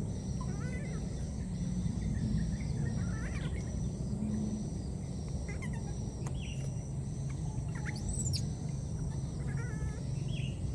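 Outdoor ambience: a steady low rumble with a faint, steady high hiss, and short high chirping calls scattered through, about eight of them, some rising and falling in pitch.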